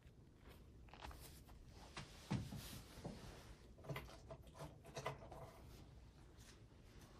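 Faint rustling and rubbing of a cardboard trading-card box being handled, with a soft knock about two and a half seconds in as it is set down on a mat, and a few small clicks after.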